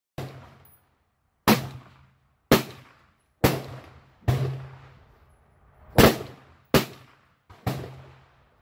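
Gunshots: eight sharp shots at an uneven pace roughly a second apart, each ringing out briefly with a short echo.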